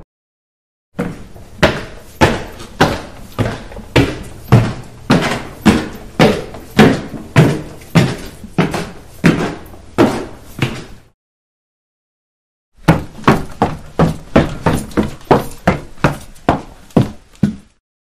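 Footsteps on stairs: a steady run of single footfalls, about two a second, that stops, then after a short silence a second, quicker run of about three footfalls a second.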